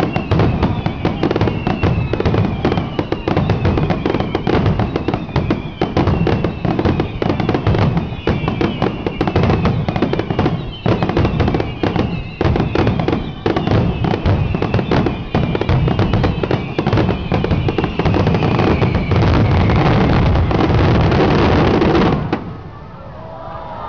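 Fireworks finale barrage: a loud, dense, unbroken run of shell bursts and crackle that stops abruptly about 22 seconds in.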